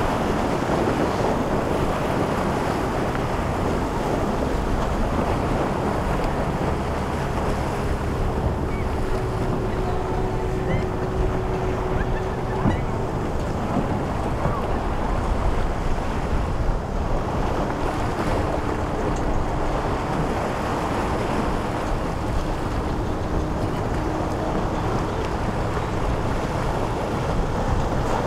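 Surf washing and wind buffeting the microphone, a steady rushing noise throughout. A boat engine's faint steady drone comes through it twice, for several seconds each time.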